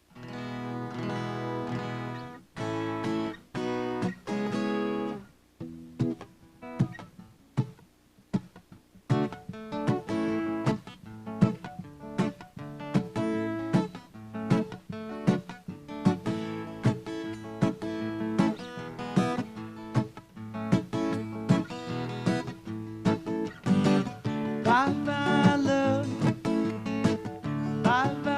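Solo acoustic guitar playing a song intro: a few ringing strummed chords, then a pause with scattered single notes, then a steady strummed rhythm from about nine seconds in.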